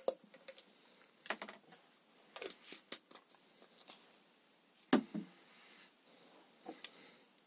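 Small clicks and knocks of objects being handled and set down on a hard workbench, scattered irregularly, with the loudest knock about five seconds in.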